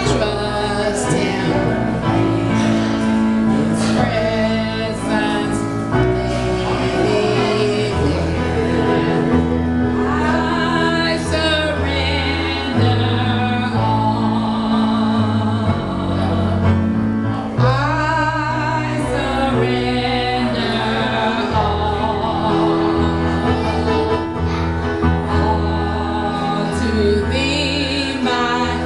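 Gospel music: male and female voices singing over instrumental accompaniment with held bass notes.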